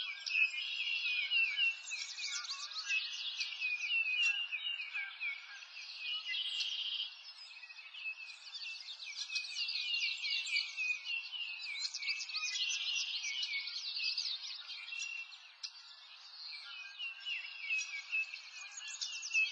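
Many small birds chirping and trilling at once, a dense chorus of short, quick calls that overlap without a break, over a light hiss.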